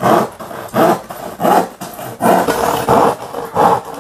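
Handsaw cutting through a wooden board with steady back-and-forth strokes, about one and a half strokes a second.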